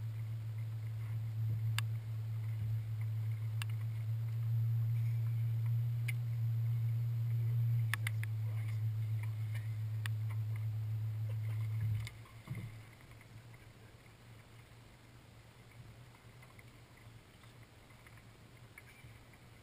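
Electric bow-mount trolling motor humming steadily, cutting off suddenly about twelve seconds in, with a few sharp clicks over it.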